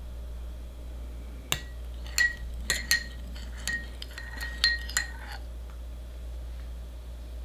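A metal measuring spoon stirring coffee syrup in a small glass bowl, clinking against the glass about eight times over a few seconds, each clink ringing briefly.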